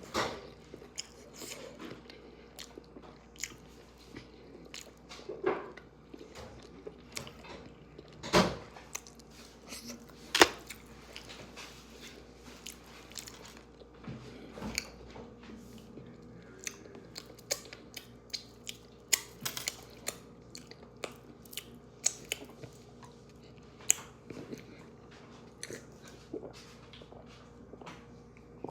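A person eating chicken wings close to the microphone, biting and chewing with irregular crunches and mouth clicks; the loudest bites come about eight and ten seconds in.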